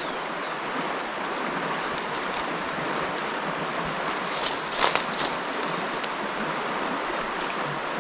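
Steady rush of a flooded river, with dry brush, twigs and leaves crackling as a person pushes through riverside vegetation; the crackling is loudest in a short cluster about four and a half to five seconds in.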